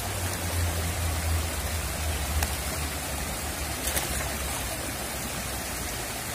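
Steady rush of a shallow, fast-flowing river around the wader, with a low rumble underneath that fades over the first few seconds and a couple of faint clicks.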